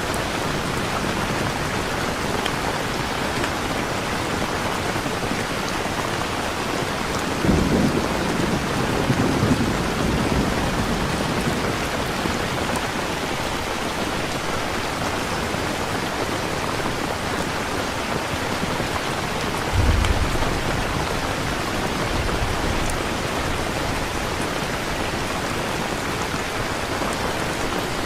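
Steady rain falling, with two low rumbles of thunder: one about a third of the way in and a shorter one about two-thirds in.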